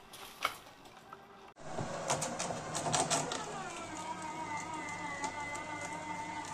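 Viking garden shredder chewing birch branches into mulch. It starts about a second and a half in with a dense run of cracking and snapping as a branch is fed in, then settles into a steady high whine.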